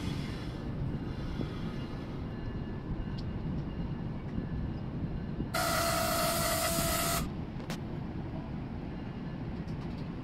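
NJ Transit train rumbling steadily at the platform. About five and a half seconds in comes a single loud blast, under two seconds long, with a pitched ring over hiss.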